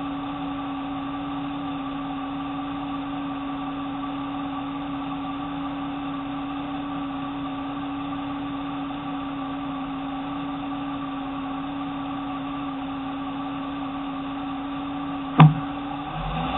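Steady, unchanging hum and hiss of an idling Jeep, heard through a bumper-mounted camera, with one sharp click about fifteen seconds in.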